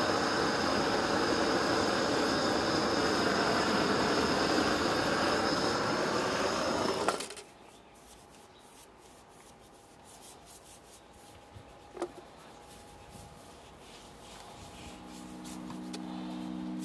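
Gas torch burner running with a steady hiss for about seven seconds, then cutting off suddenly; after it, a paintbrush scrubs wax onto a metal relief in quick rubbing strokes, with one sharp click in the middle. Soft music with a few held tones comes in near the end.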